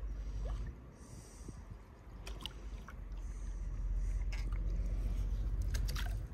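Wind buffeting the microphone, with a few splashes and drips from a stand-up paddle dipping into the water.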